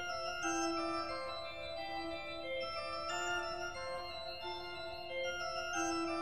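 Background music: a melody of held, organ-like notes over sustained chords, the notes changing about once a second.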